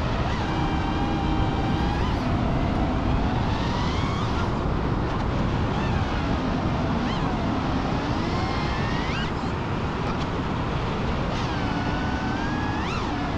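FPV freestyle quadcopter's motors and propellers whining, the pitch gliding up and down as the throttle changes, over a steady rush of wind noise.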